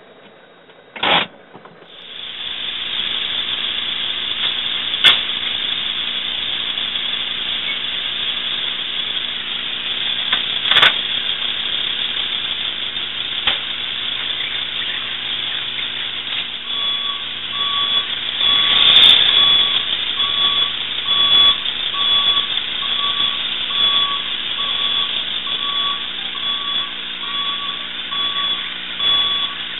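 A vehicle running with a steady hum and hiss, a few sharp clicks over it; from about halfway a two-pitched electronic beep repeats about once a second, like a reversing alarm.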